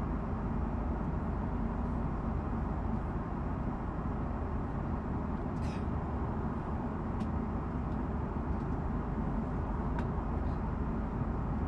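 Steady cabin drone of an Airbus A330-300 in flight: engine and airflow noise, even throughout. A few light clicks are heard about halfway through and near the end.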